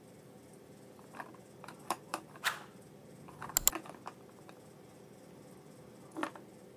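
Light clicks and taps of small plastic toy cookware and a toy stove being handled: a scatter of short clicks, the loudest a quick double click about three and a half seconds in, and one more near the end.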